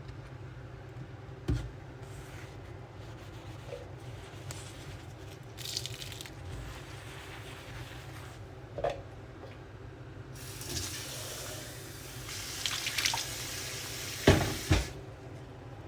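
Kitchen tap running for about four seconds near the end, with a few sharp knocks of things being handled at the sink, over a steady low hum.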